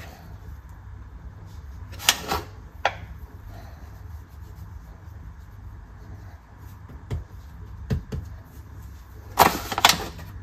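Ciabatta dough being handled on a wooden cutting board: a few sharp knocks and scrapes, the loudest two near the end, over a steady low hum.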